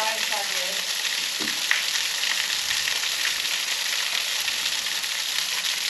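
A small waterfall splashing steadily: an even hiss with little low rumble.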